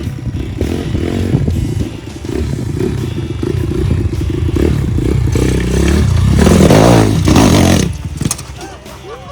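Dax monkey bike engine revving hard, with clattering and scraping over rough ground. It is loudest about six to eight seconds in, then drops away suddenly.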